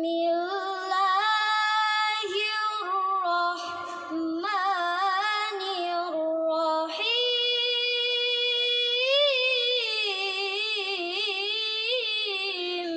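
A young girl's voice reciting the Quran in the melodic tilawah style, drawing out long ornamented phrases with short breaths between them. From about seven seconds in she holds one long note, wavering and turning in pitch.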